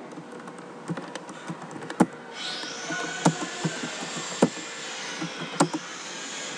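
Computer keyboard keys typed in short runs, with a few sharper single key strikes about a second apart. A steady hiss comes in about two seconds in.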